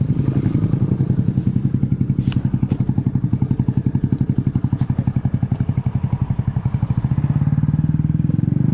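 Motor scooter engine idling steadily, with an even pulse of about a dozen beats a second; it grows a little louder near the end.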